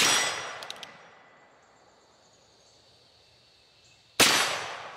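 Two gunshots from a Ruger Single-Six revolver firing .22 Magnum, about four seconds apart, each a sharp crack trailing off over about a second. A couple of faint clicks follow shortly after the first shot.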